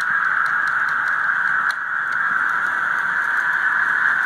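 Onboard sound of a Broadway Limited N-scale steam locomotive played through a sugar cube speaker: a steady, loud hiss with light, irregular ticks, briefly dipping just before two seconds in.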